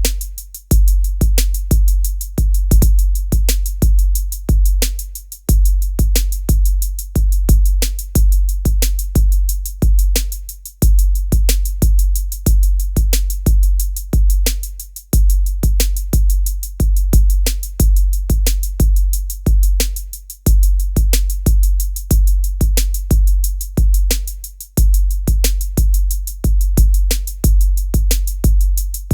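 Heavy drum-machine beat: a deep, booming bass kick under sharp, crisp hits, repeating in loops that break off briefly about every five seconds.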